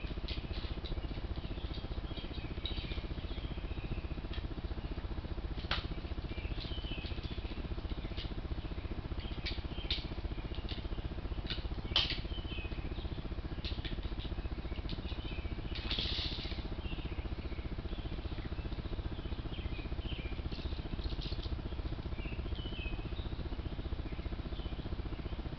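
Raccoons at a bird feeder: a few sharp clicks and knocks, the loudest about twelve seconds in, and a brief rustling burst a few seconds later, with scattered faint high chirps over a steady low hum.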